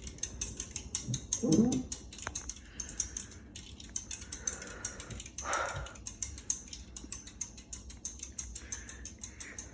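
Ceiling fan ticking rhythmically, a few clicks a second, as it spins. Two brief louder sounds come about a second and a half and five and a half seconds in.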